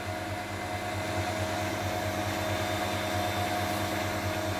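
Cooling fans of a 1 kW VHF linear amplifier running with a steady whir and hum while the amplifier is not keyed; the fans speed up only when it transmits.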